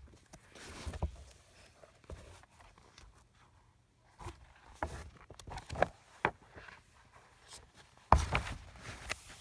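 Handling noise from a phone held against bedding and clothing: scattered rustles and sharp little clicks and taps, with the loudest burst of rustling about eight seconds in.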